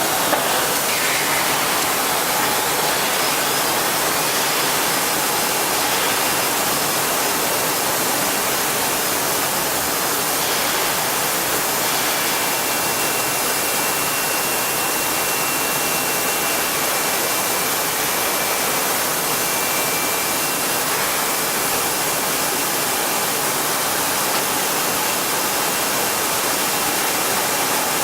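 Heian ER-531P CNC router running: a steady, loud hiss, with a faint high whine from about 12 to 21 seconds in.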